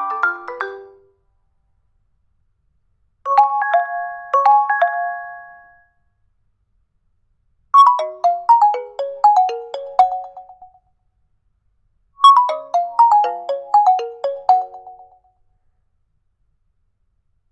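Nokia 2.3 ringtones played one after another: the end of one tune dies away, then a short melody of a few notes, then a falling run of notes played twice, with silent gaps between them.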